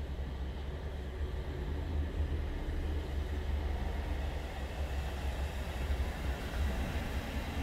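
Articulated lorries' diesel engines rumbling low and steady as they drive slowly past on the wet road, with a hiss of noise over the rumble.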